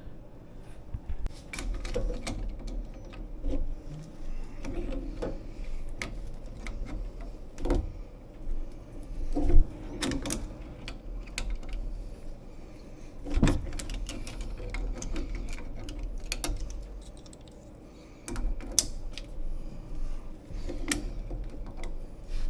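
Irregular clicks and knocks of metal plumbing fittings and tools being handled, with low handling rumble between them and one sharp knock about nine seconds in.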